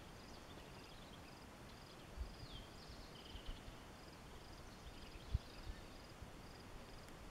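Faint outdoor ambience: an insect chirping in short high pulses repeated about twice a second, with a few brief higher notes, one falling in pitch. A low rumble runs underneath, with a soft thump about five seconds in.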